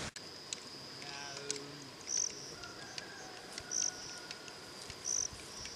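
Insects and birds: a steady high insect trill, with a short high chirp repeated about every second and a half.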